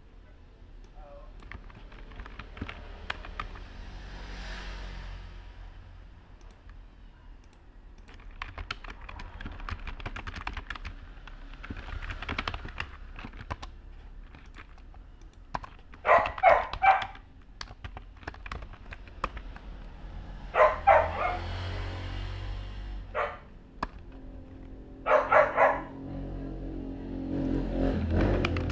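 Computer keyboard typing in scattered clicks, while a dog barks in the background in three short bursts of rapid barks, about halfway through, around three-quarters of the way through, and near the end.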